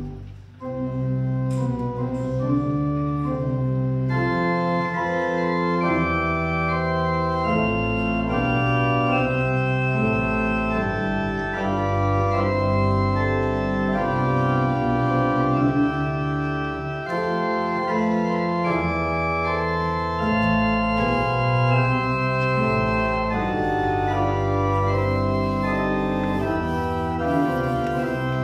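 Church organ playing slow, held chords. The music breaks off briefly about half a second in, then comes back and fills out with higher notes a few seconds later.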